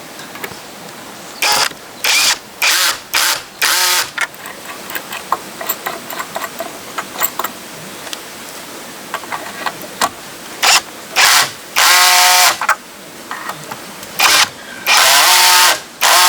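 A power tool run in a series of short bursts, stopping and starting about a dozen times. The longer bursts carry a steady whine.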